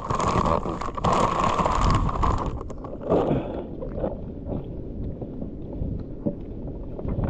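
Sea water sloshing and splashing with wind on the microphone. A loud rushing hiss drops away about two and a half seconds in, leaving a low sloshing rumble with small knocks.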